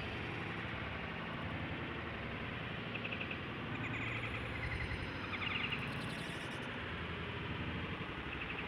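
Steady outdoor background noise, an even hiss-like rumble, with a few short high chirps from about three to six seconds in.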